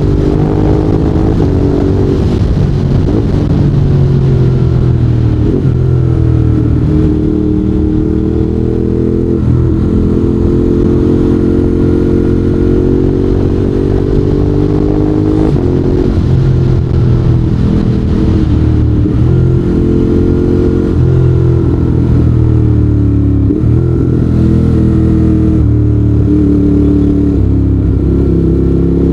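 Ducati Monster 821's 821 cc L-twin engine running loud under way, its revs rising and falling again and again as the bike accelerates and changes gear.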